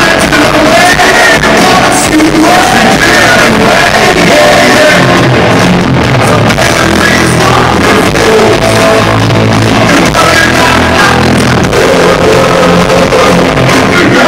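Rock band playing live in a large hall: electric guitars, bass and drums, with sung and shouted vocals.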